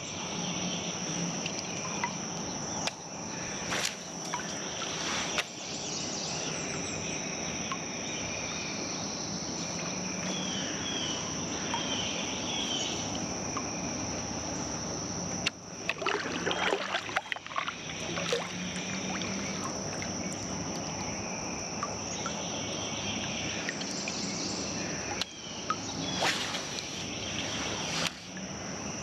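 Outdoor waterside ambience carried by a steady, high-pitched insect drone. Scattered clicks and knocks come over it, with a busier burst about halfway through.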